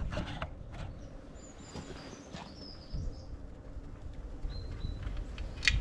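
Birds chirping briefly and faintly over a low steady outdoor background, with a few light clicks and taps.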